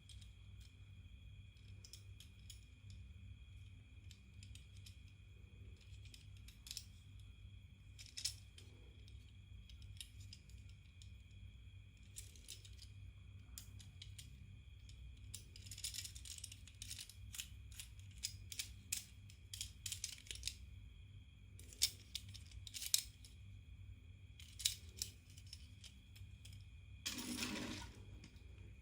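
Packaging of a 1:64 diecast model car being handled and opened: scattered small clicks and taps, with a longer rustle of packaging near the end.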